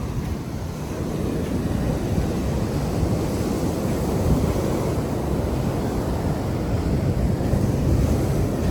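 Wind rumbling on the microphone over a steady wash of sea surf breaking on the beach.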